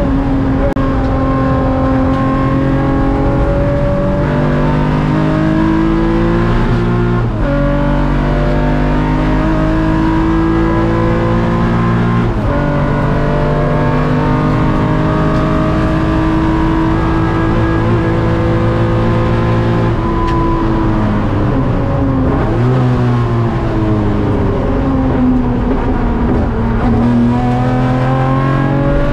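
Nissan Fairlady Z S30 with a 3.1-litre bored and stroked L28 straight-six on Solex 50 mm carburettors, heard from the cockpit at full race pace through a large-bore exhaust. The engine note climbs steadily and drops sharply about 7 and 12 seconds in as it shifts up, falls away around 20 to 23 seconds as it slows and shifts down, then climbs again near the end.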